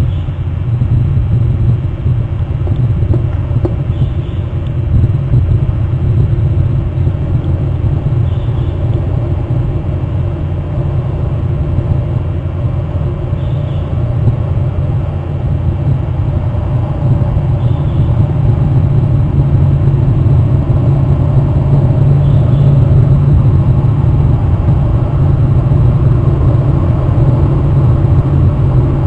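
Steady, loud low rumble of wind buffeting an outdoor camera microphone, growing a little louder in the second half.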